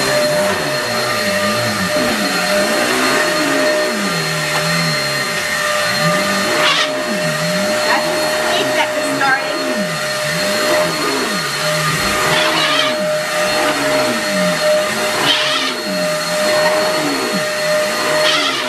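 Eureka Airspeed Exact Pet bagless upright vacuum running on carpet with a steady high whine. As it is pushed back and forth, a squeak rises and falls in pitch about once every second and a half, with a few short knocks. The squeak only recently appeared, after two and a half years of use, and comes in the carpet brush mode.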